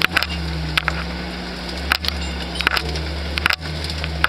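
Jeep engine running steadily, heard from inside the cab as it drives over rough ground, with scattered sharp clicks and knocks throughout.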